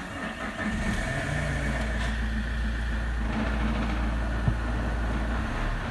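Opel Vectra C's Z19DTH 1.9-litre turbodiesel starting up, catching within about the first second and settling into a steady idle, heard from inside the cabin.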